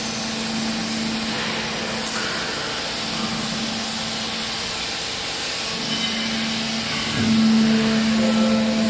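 Hydraulic baler's motor and pump running with a steady hum, growing louder about seven seconds in.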